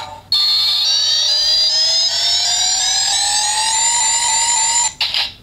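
Electronic sound effect from a CSM Double Driver toy belt's speaker: one tone sweeping steadily upward, with layered tones stepping upward above it like a charging sound. It stops abruptly near the end, followed by a short burst.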